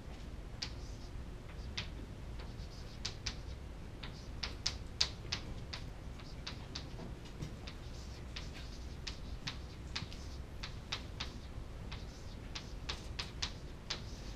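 Chalk writing on a chalkboard: a string of short, irregular taps and scratches as the chalk strikes and drags across the board, in clustered runs, over a low steady hum.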